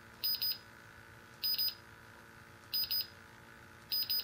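Ion Science Tiger Select benzene monitor giving its keypad beep as the arrow key is pressed to scroll the soft-key menus. There are four quick high double beeps, about a second and a quarter apart, one for each press.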